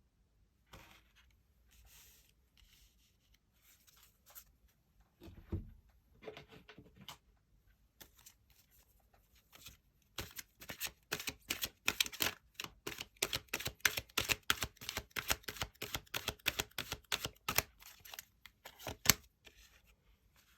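Tarot cards being handled and shuffled. Soft sliding and rustling at first, then about halfway a quick run of crisp card clicks, ending with one louder snap near the end.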